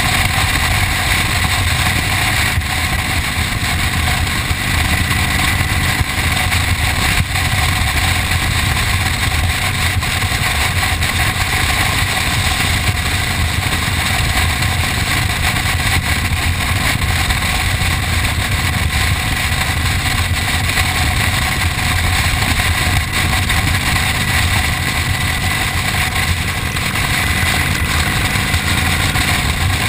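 Touring motorcycle's engine running steadily at cruising speed, with constant wind rush over the microphone.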